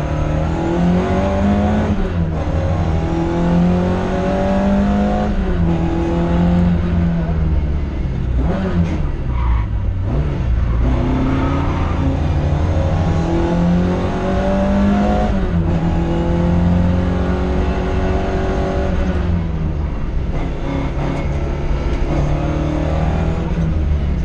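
Ford Escort RS2000's four-cylinder engine heard from inside the cabin, revving hard and climbing in pitch through the gears, with a sudden drop at each upshift. Near the middle the revs fall away as the car brakes and changes down, then climb again.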